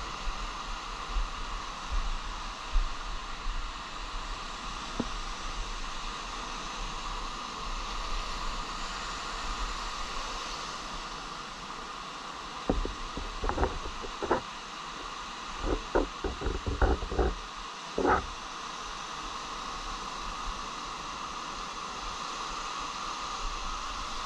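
Ocean surf washing up the beach as a steady rush, with wind rumbling on the microphone. About halfway through, a string of sharp clicks and knocks comes close by for several seconds.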